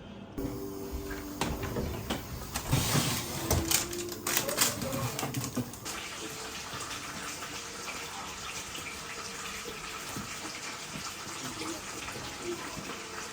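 Water running steadily from a kitchen tap into a sink, with knocking and clattering of dishes for the first few seconds.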